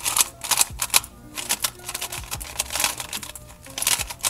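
Lego brick Rubik's cube being turned by hand, its plastic layers clacking in a rapid, irregular run of clicks.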